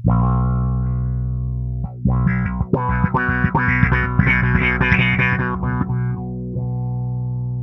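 Fender Precision Bass played through an EarthQuaker Devices Spatial Delivery envelope filter: a held low note, then a quick run of plucked notes about two seconds in, the tone getting brighter as the notes come fast, and a held note ringing out near the end.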